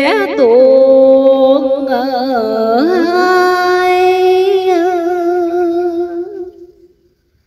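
A woman's voice chanting Vietnamese verse in the sung ngâm style: long held notes with a wavering vibrato, fading away near the end.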